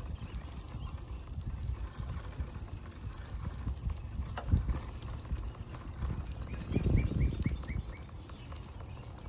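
Wind buffeting the phone's microphone in uneven gusts, with a quick run of about six high chirps about two-thirds of the way in.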